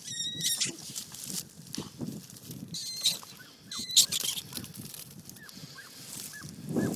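Rat giving short high-pitched squeals as a Plummer terrier catches and kills it: once at the start and twice around three to four seconds in. The rustle of the dog working through crop stubble runs under it.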